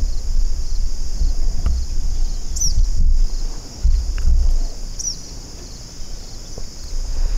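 A steady, high insect chorus of evening field insects, over a low wind rumble on the microphone. Two short high chirps stand out, about two and a half seconds apart.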